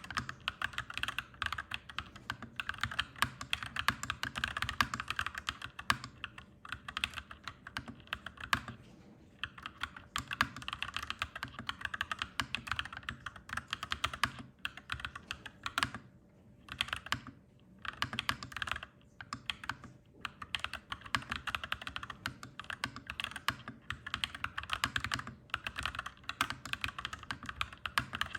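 Clacky mechanical keyboard being typed on in quick, continuous runs of keystrokes, broken by short pauses about nine, sixteen and eighteen seconds in.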